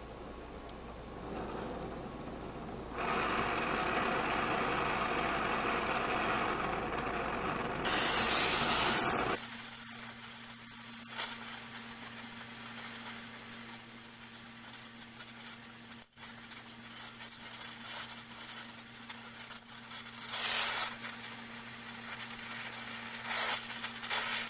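A power tool or machine runs with loud, even noise for about six seconds, then stops abruptly. A quieter steady hum with scattered light clicks follows.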